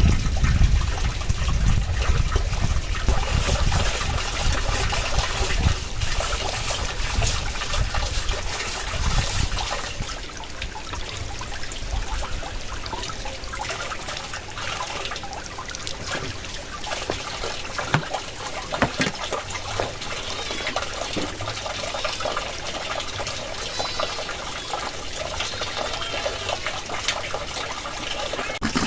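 Steady rain falling with a continuous hiss and scattered drip ticks, while strong wind rumbles on the microphone, heaviest in the first ten seconds or so and then easing.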